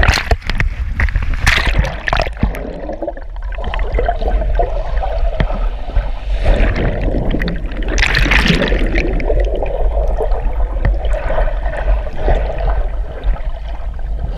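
Shallow surf water sloshing and splashing, with louder surges of splashing twice, over a steady low rumble.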